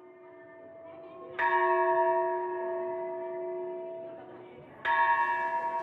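Buddhist temple bell struck twice, about a second and a half in and again about five seconds in. Each stroke rings on and fades slowly, over the fading ring of an earlier stroke.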